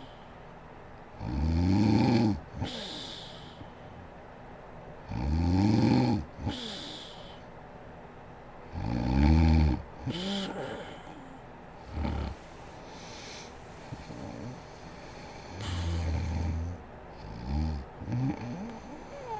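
A woman snoring in her sleep: three loud snores spaced about four seconds apart, each followed by a short weaker snort, then fainter and less regular snores in the second half.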